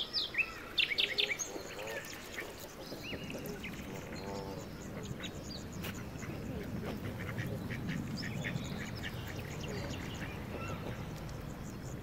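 Small birds chirping in quick, high calls throughout, loudest in the first two seconds, with a duck quacking briefly about four seconds in. A low background rumble sits underneath, strongest in the second half.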